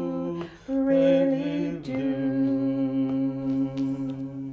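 A man and a woman singing the held closing notes of a song together in two-part harmony. The notes break off briefly about half a second in, the lower voice steps down about two seconds in, and the singing fades out at the end.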